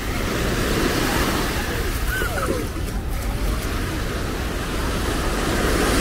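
Small sea waves washing onto a sandy shore in a steady hiss, swelling about a second in and again near the end, with a low rumble of wind on the microphone.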